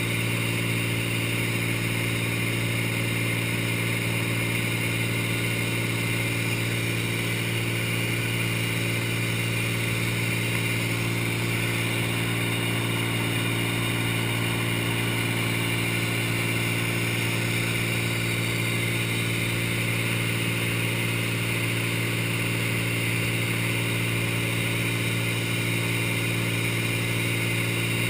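Cessna light aircraft's piston engine and propeller running at a constant cruise setting, a steady drone with a strong low hum that neither rises nor falls.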